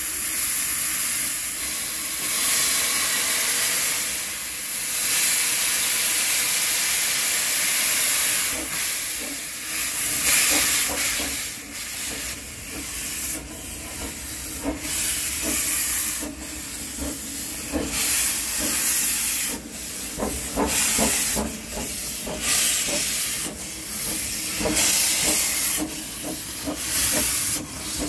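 1889 Baldwin 2 ft gauge steam locomotive hissing steadily as steam blows from its open cylinder drain cocks, then chuffing in repeated bursts, about one or two a second, as it works slowly forward.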